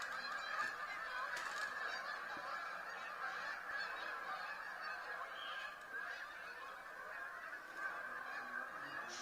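A large migrating flock of birds calling all at once: a dense, continuous chorus of many overlapping calls.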